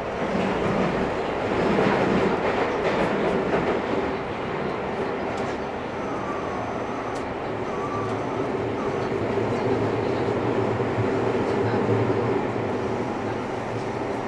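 Seibu 6000 series renewal electric train running, heard from inside the passenger car: steady wheel-and-rail running noise under a steady electric motor tone from its GTO-VVVF traction equipment.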